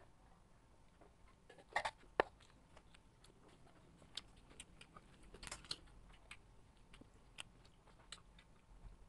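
Close-up eating and drinking sounds: scattered small clicks and crunches of chewing, with sips from a paper cup. Two louder crunches come about two seconds in, and a cluster of them comes around the middle.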